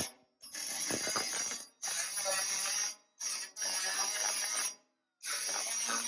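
Angle grinder with a 3-in-1 diamond grinding disc grinding the steel edge of a 1973 MGB fender patch opening, in bursts of about a second with short gaps between, a steady high-pitched whine running through each burst.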